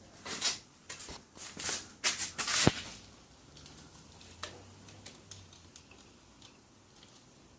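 Metal tools and parts being handled: scraping, rustling and clinking for a few seconds, ending in one sharp knock, then a few faint ticks.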